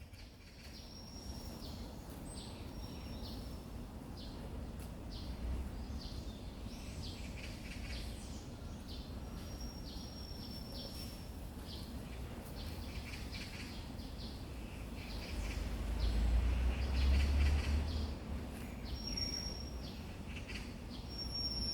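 Wild songbirds chirping and calling repeatedly, with a few short, high, held whistles among the chirps, over a steady low rumble that swells for a couple of seconds near the end.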